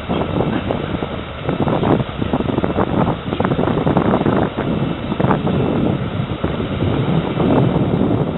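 Wind buffeting the microphone: a loud, uneven rumble and rustle that swells and drops in gusts.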